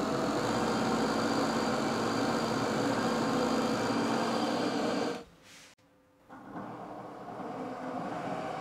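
Belt-driven motor-generator rig running steadily: a larger DC motor spins a 220 V DC hand-blender motor used as a generator, which is arcing at its brushes from too much high voltage. About five seconds in the sound cuts out for about a second, then resumes quieter.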